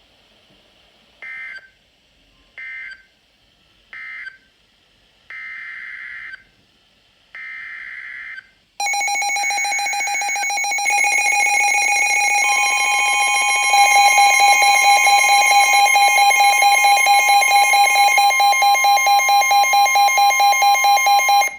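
Emergency Alert System data bursts and attention tone. Three short bursts and then two longer ones are the SAME digital code that closes one warning and opens the next. About nine seconds in, a loud steady multi-tone attention signal begins; it grows louder, pulses slightly, and cuts off abruptly.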